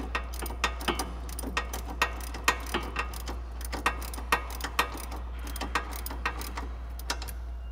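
Ratchet with an 18 mm deep socket clicking in irregular strokes, a few clicks a second, as it backs off a sway bar end link's locking nut; the locking nut keeps resisting all the way off.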